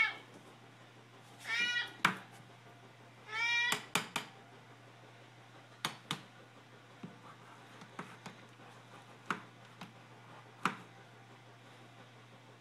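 A domestic cat meowing for food, three times in the first four seconds, each meow a rising then falling call. Scattered sharp taps and knocks follow through the rest, over a low steady hum.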